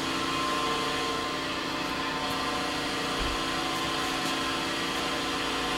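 Chevalier 1020 AD surface grinder running steadily: an even machine hum with a few fixed tones over a steady noise.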